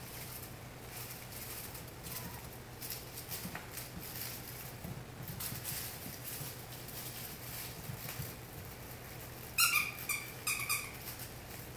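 Puppies scrambling and pawing on a blanket, a soft rustling and scratching. Near the end a squeaky plush toy being chewed gives a few short squeaks.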